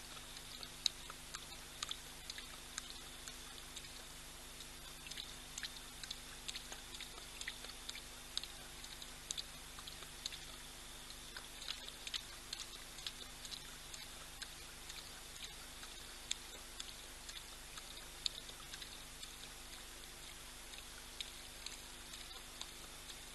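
Male lion lapping water: a faint, irregular run of small clicks, a few each second, over a steady low hum.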